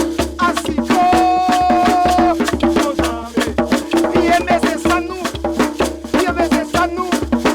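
Background music: a melody with some long held notes over dense, fast percussion.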